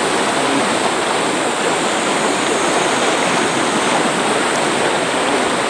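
A flooded stream rushing fast and high after days of rain, a loud steady wash of muddy water.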